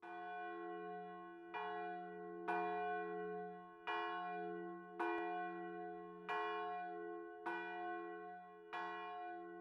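A large bell tolling, struck about eight times a little over a second apart, each stroke ringing on over a low steady hum until the next.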